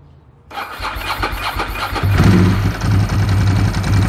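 Ducati 916's 90-degree V-twin engine being started on the electric starter: it cranks for about a second and a half, catches about two seconds in, and settles into a steady idle. It is being started for a charging-system test with a multimeter on the battery.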